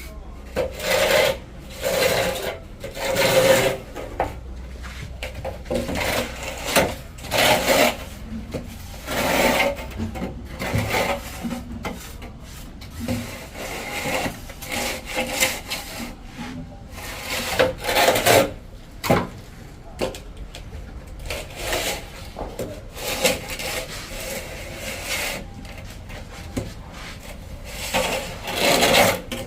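A hand tool working plaster on a wall: repeated rubbing, scraping strokes, roughly one every one to two seconds, with some strokes louder and longer than others.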